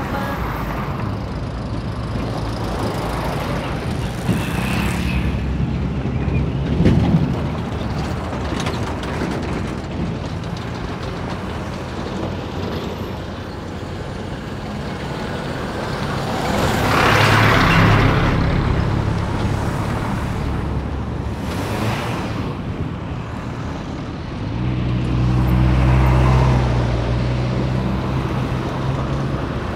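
Road traffic: vehicles driving past on a paved road. Louder pass-bys come about halfway through and again near the end, the second with a deep engine drone.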